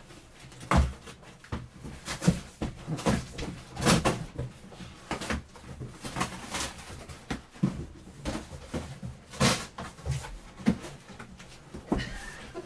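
Cardboard scraping and thumping irregularly as a tightly fitting case is tugged and worked against the inside of a shipping carton, which keeps sticking.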